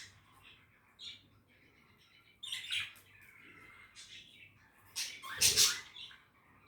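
Budgerigars chirping and chattering in short, scattered calls, with a louder call about two and a half seconds in and a loud, harsh squawk about five seconds in.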